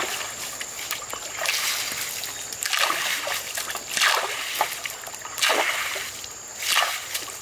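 Repeated splashes in shallow stream water, about one every second and a half, as a man wading in the stream rips up bank plants and flings them and water about.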